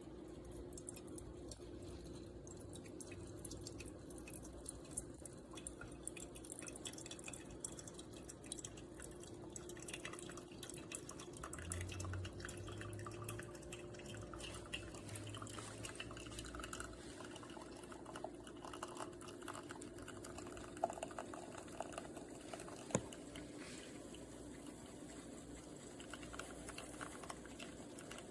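Espresso machine brewing: faint dripping and trickling liquid over a steady hum, with scattered small ticks and a couple of sharper clicks near the end.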